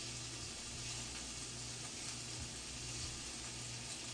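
Slices of pork sizzling on a hot tabletop grill pan, a steady hiss, with a faint low hum underneath.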